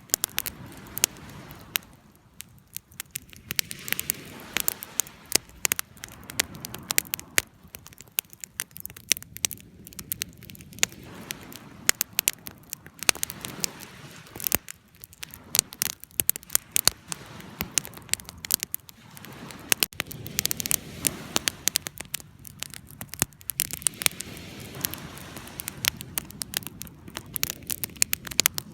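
Wood fire crackling: dense, irregular sharp pops and snaps over a soft, steady hiss of flame.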